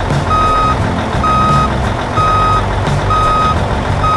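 Truck reversing alarm beeping about once a second, each beep a short single steady tone, over a low engine rumble.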